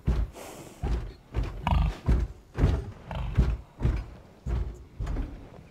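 Heavy thudding footsteps of a walking rhinoceros, about two a second, with one short animal call about a second and a half in.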